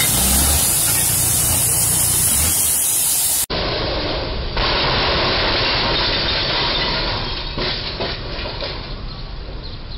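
A steady rushing hiss that cuts off abruptly about three and a half seconds in. Then a box truck's cargo box hits the underside of a low railroad bridge: its roof crunches and scrapes, with a run of crackles near the end as the sound fades over road noise.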